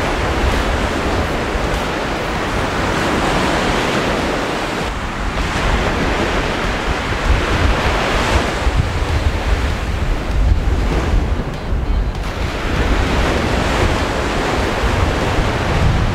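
Wind noise on the microphone, coming in gusts, over the wash of surf breaking on a beach.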